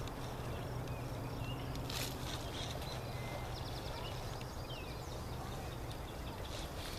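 Meadow ambience: a steady low hum under a few faint, short bird chirps, with a brief fast trill a little past the middle and a single light knock about two seconds in.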